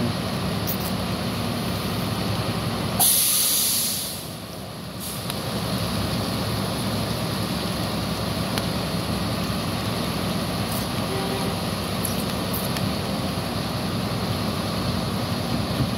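Diesel engines of FAW dump trucks idling steadily. About three seconds in there is a loud hiss of air lasting about a second: a truck's air-brake system venting.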